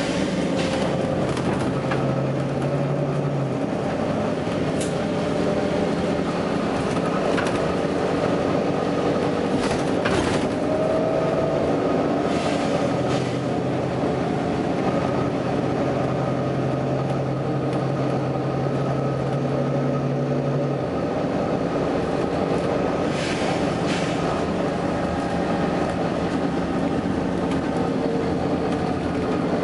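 Volvo B9TL double-decker bus running, its engine and drivetrain tones rising and falling, with several short bursts of air hiss.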